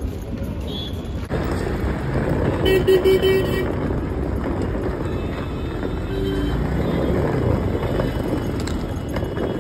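Road traffic running steadily, with a vehicle horn honking for about a second about three seconds in and a shorter honk around six seconds in.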